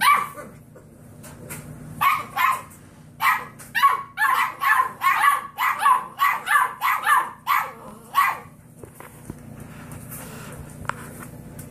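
Six-week-old golden retriever puppies barking, puppies only just learning to bark: a single bark, two more about two seconds in, then a quick run of barks from about three seconds in that stops a little after eight seconds.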